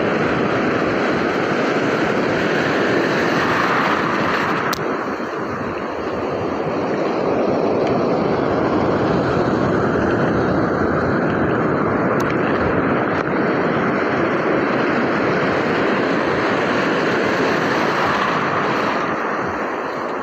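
Ocean surf breaking and washing through the shallows, a steady rushing noise that eases briefly about five seconds in and again near the end.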